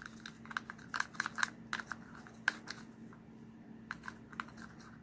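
A wooden stir stick scraping and clicking against the sides of a small plastic cup as powdered pigment is worked into gloss varnish to break up clumps. The irregular clicks come thick and fast, then thin out after about three seconds, over a faint steady hum.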